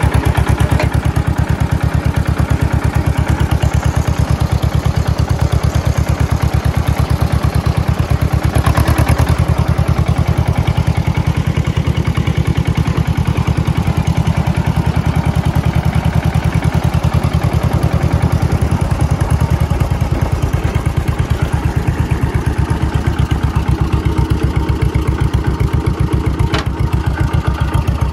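John Deere M tractor's two-cylinder engine running steadily under way, with a rapid, even beat of exhaust pulses.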